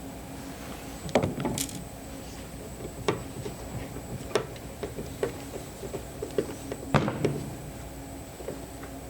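Scattered knocks and clicks of hand work on a boat console, parts and tools being handled and set down: about half a dozen sharp strikes, the loudest about a second in and about seven seconds in, some with a short ringing tail.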